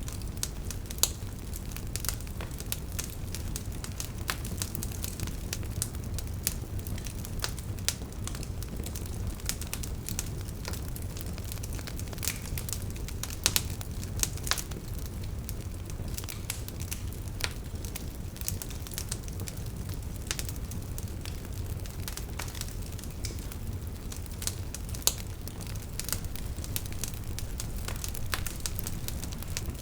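Wood fire burning in a fireplace: a steady low rumble of the flames with frequent sharp crackles and pops from the logs, a few louder pops standing out.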